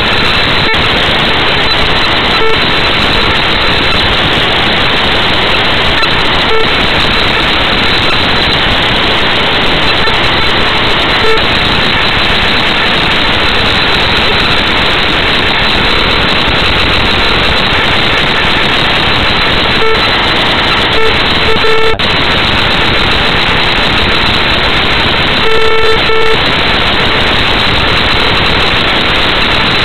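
Loud, steady static hiss with short beeps now and then, several of them close together about two-thirds of the way through.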